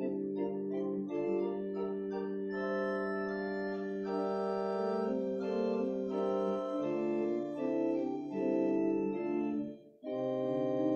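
Organ playing slow, held chords. The sound breaks off briefly about ten seconds in, then the next chord comes in.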